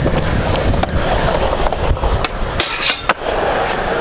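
Skateboard wheels rolling on a concrete skatepark floor, a steady grinding rumble, with a couple of sharp clacks from the board, the sharpest about three seconds in.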